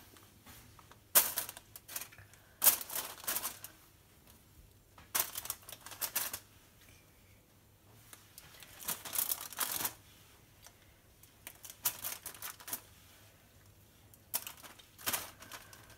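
Wooden skewers of spiced beef being laid one by one onto a tray lined with baking paper and foil: the paper crinkles and the skewers tap down in short bursts of clicks and rustling every couple of seconds.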